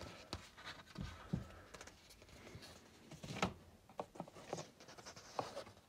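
Faint handling sounds of a paper instruction booklet and a cardboard box: scattered soft taps and rustles, with one slightly louder tap about three and a half seconds in.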